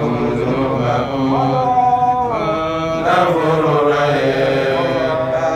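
Male voice chanting an Islamic religious recitation in a slow, melodic style, with long held notes that glide up and down without a break.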